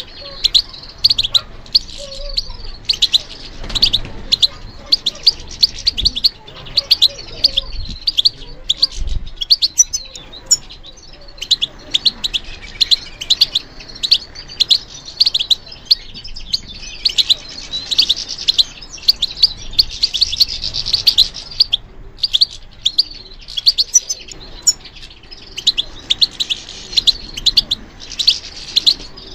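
European goldfinch singing: a continuous stream of quick, high twittering chirps and trills, with a short break about two-thirds of the way through.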